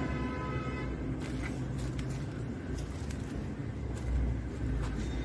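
Low, steady rumble of a motor vehicle running close by, with a short tone in the first second and a few light knocks.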